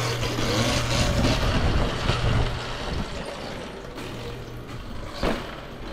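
Sur-Ron electric dirt bike riding a wheelie on a tiled floor: a low steady motor and drivetrain hum under tyre and rushing noise, easing off after about three seconds. A short sharp knock comes near the end.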